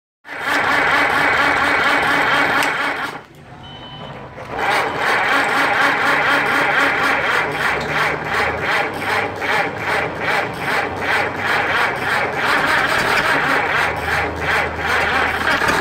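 Ford Model T four-cylinder flathead engine running on a test stand on its first start after a full rebuild. It falls away sharply about three seconds in, then picks up again and runs on with an uneven, pulsing beat.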